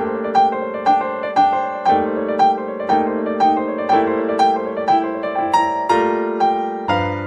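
Background piano music: light, lively notes struck about twice a second over sustained chords.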